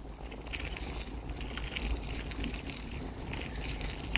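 Bicycle rolling over cracked asphalt: tyre noise with scattered light ticks and rattles, over a steady rumble of wind on the microphone.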